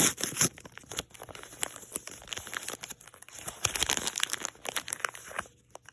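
Paper wrapping of a Mini Brands capsule crinkling and tearing as it is unwrapped by hand, with dense irregular crackles that stop shortly before the end.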